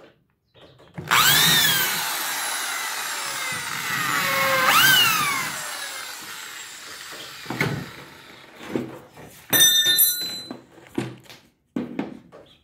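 Electric drill boring small pilot holes into wood. The motor starts suddenly about a second in with a rising whine, revs up again a few seconds later, then winds down. Afterwards come a few knocks of handling and a brief metallic rattle.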